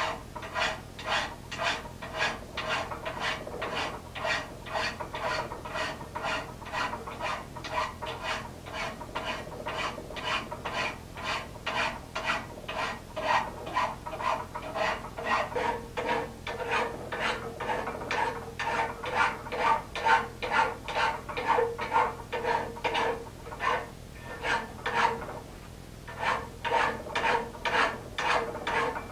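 Hand file rasping back and forth across a steel forging die clamped in a vise, in steady strokes about two a second, with a short break near the end. The filing widens the die's tenon slot a hair so that it fits the size wanted.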